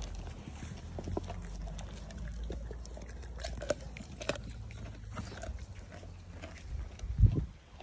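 Cane Corso gnawing a raw meaty bone: irregular crunching clicks and cracks of teeth on bone over a low rumble, with a loud low thump near the end.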